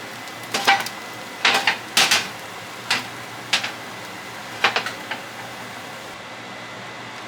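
Kitchen dishes and utensils clinking and knocking: about a dozen short, sharp hits spread over the first five seconds, over a steady background hum.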